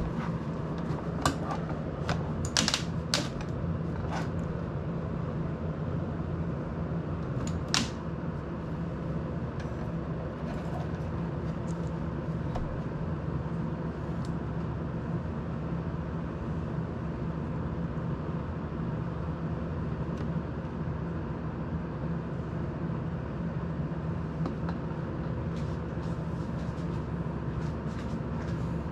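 Desk air-circulator fan running with a steady whir and low hum. A few sharp clicks and knocks of handling and tools sound in the first several seconds.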